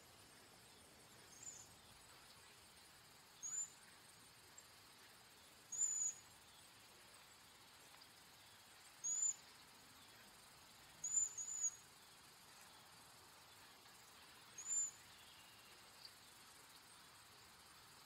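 Cedar waxwing giving a series of short, very high, thin calls, each an arched whistle, about every two to three seconds, some in quick pairs.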